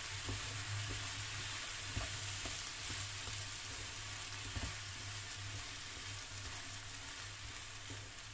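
Corned beef, diced potatoes and carrots sizzling in a frying pan as they are stirred with wooden chopsticks, with a few light clicks of the chopsticks against the pan. A low steady hum runs underneath.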